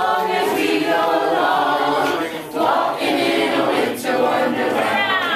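A mixed group of adult and child voices singing together a cappella, in short phrases with brief breaks between them.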